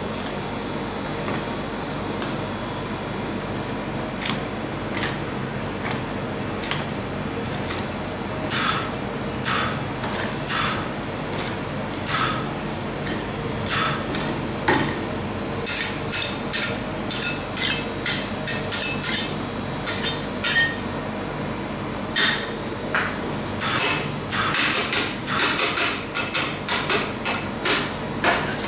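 Metal spatulas scraping and tapping on the frozen steel plate of a rolled-ice-cream pan as the ice cream is spread thin. The strokes are sparse at first and grow quicker and denser in the second half, over a steady low hum.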